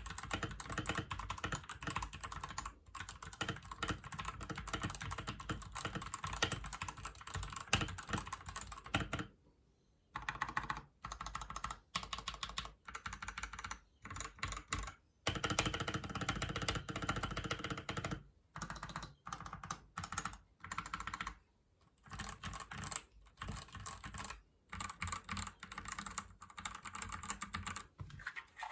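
Fast typing on a Gamakay LK67 mechanical keyboard fitted with linear Gateron Yellow switches and double-shot PBT pudding keycaps. The key strokes come in dense bursts separated by short pauses.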